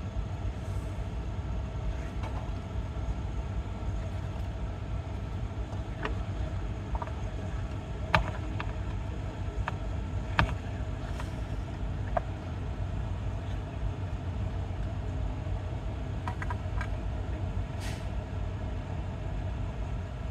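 Scattered light clicks and knocks of an inverter's metal casing being handled and worked apart, the sharpest about eight seconds in, over a steady low mechanical rumble.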